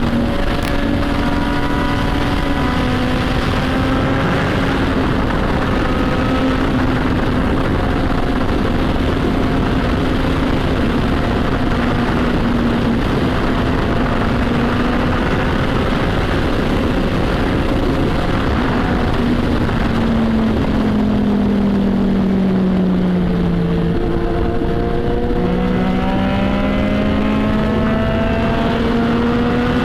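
Motorcycle engine and exhaust note heard while riding, under heavy wind noise on the microphone. The engine pitch holds fairly steady, falls about twenty seconds in, then rises again near the end.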